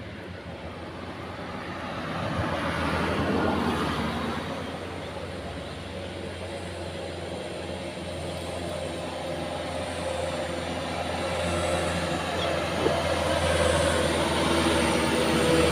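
Road traffic passing: a vehicle goes by about three seconds in, then a large truck approaches, its engine drone growing louder toward the end.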